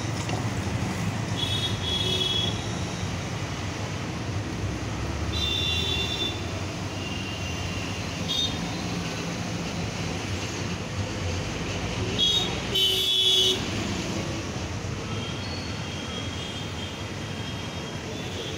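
Steady road traffic noise with a few short vehicle horn toots, the loudest about 13 seconds in.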